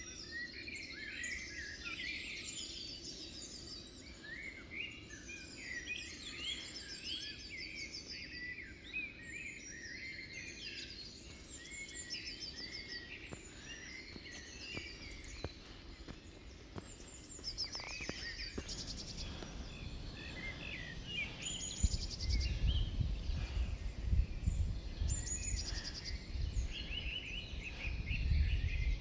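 Several songbirds singing outdoors, with many overlapping chirps and trills. A low rumbling noise comes in about two-thirds of the way through and is loudest near the end.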